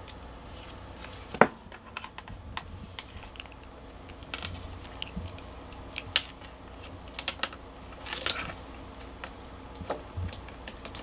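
Scattered, irregular clicks and taps as a cat grabs a green stick toy with its paws and bites it against the desktop, the loudest click about a second and a half in.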